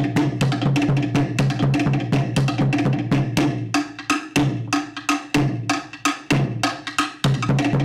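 Fast Tahitian dance drumming: quick, sharp wooden drum strikes, several a second, over a pulsing deeper drum.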